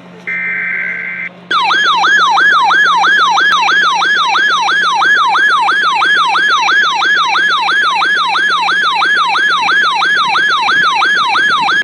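A NOAA Weather Radio SAME digital header burst, a harsh buzzing screech lasting about a second, marks the start of a Required Weekly Test. It is followed by the weather radio's electronic alert siren, a loud warbling tone sweeping up and down about two and a half times a second, which cuts off abruptly near the end.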